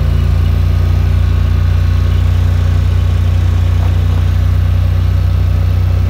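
Vehicle engine running steadily with a constant low hum, heard from on board as it drives along a gravel road.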